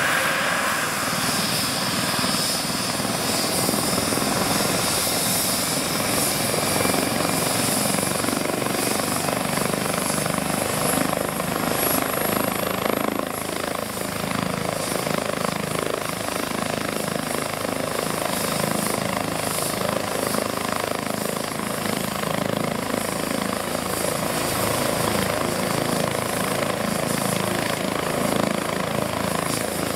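A Eurocopter EC135 twin-turbine helicopter running on the ground with its main rotor turning: steady rotor and engine noise with high turbine whines that shift in pitch.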